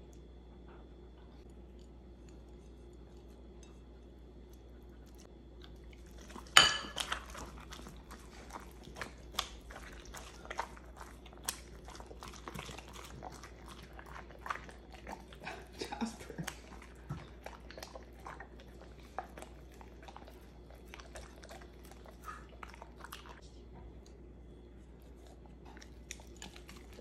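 A German shepherd eating meatloaf off a plate. The sound starts about six seconds in with a sharp clink, then runs as many quick wet chewing smacks and light knocks against the plate, which die down a few seconds before the end.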